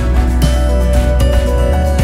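Background music with sustained pitched notes and a steady beat.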